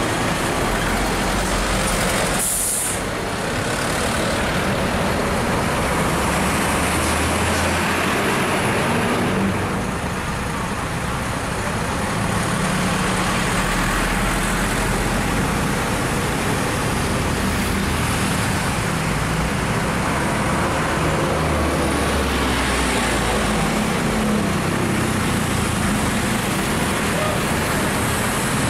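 Large diesel coaches running and manoeuvring in street traffic, their engine rumble swelling and fading as they move, with motorcycles passing. A short air-brake hiss about three seconds in.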